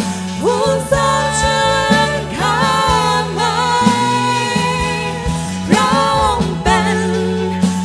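Live worship music: women singing into microphones over instrumental accompaniment, in phrases with held, wavering notes.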